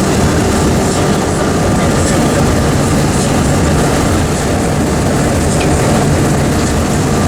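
Steady road noise heard from inside a moving vehicle: a continuous rush of tyre and wind noise with a low engine hum underneath.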